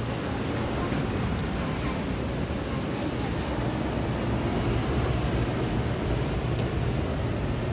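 Steady wind rumble on the microphone over the wash of ocean surf.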